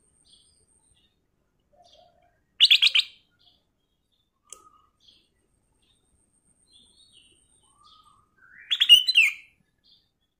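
Black-crested bulbul singing: a short, loud phrase about two and a half seconds in and a longer one with rising and falling notes near the end, with faint single chirps between.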